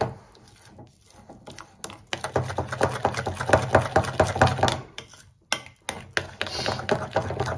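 A spoon stirring thick flour-and-apple-juice starter batter in a glass bowl: rapid clicks and scrapes of the spoon against the glass, with a short pause a little past the middle.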